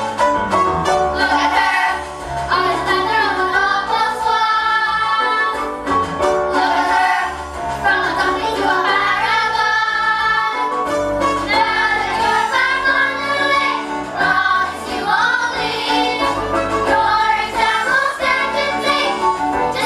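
Young cast singing together in a musical-theatre finale number, with instrumental accompaniment and held bass notes.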